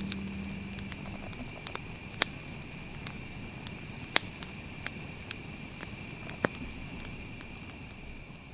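Wood campfire crackling, with sharp, irregular pops, the loudest about two, four and six and a half seconds in. A faint, steady high-pitched drone runs underneath.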